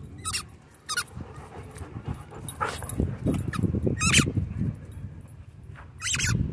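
A German Shorthaired Pointer biting down on a squeaky tennis ball, giving about five short, high squeaks at irregular intervals.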